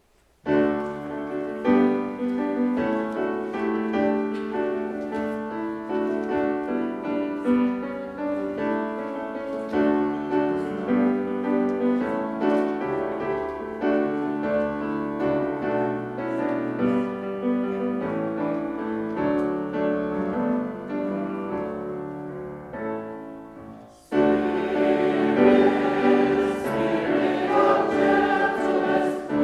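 A piano plays an introduction of struck, sustained chords. About four-fifths of the way through a choir comes in, singing with the piano, and the sound becomes louder and fuller.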